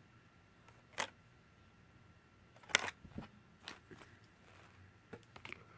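Sharp plastic clicks and taps from handling a Samsung Galaxy On5 as its snap-on back cover is removed. There is a click about a second in and a louder one just before the middle, then several softer clicks.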